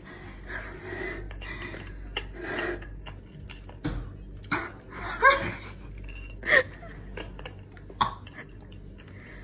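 A needle scratching and picking at a thin disc of dalgona honeycomb candy on a ceramic plate, in scattered small clicks and scrapes, with a few short grunts and breaths in between.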